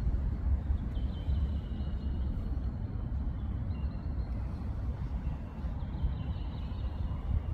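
Faint, high, drawn-out bird song in a forest, heard twice: about a second in and again near the end. A loud, steady low rumble lies under it throughout.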